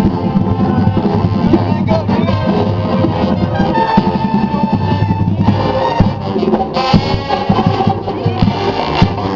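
Marching band playing, brass over drums, with a held brass note about halfway through and a sharp accented hit a little later.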